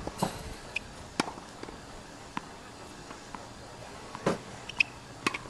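Tennis balls being hit with a racket and bouncing on a hard court: a string of sharp pops at irregular intervals, the loudest about four and five seconds in.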